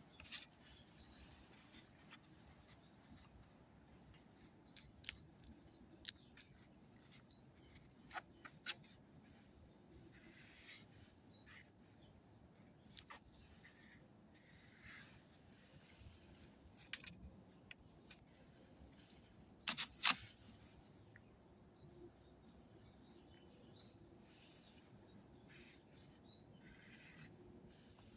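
Plastic spreader working thick filler over fiberglass: faint, scattered scrapes and sharp clicks, with a louder pair of clicks about two-thirds of the way through.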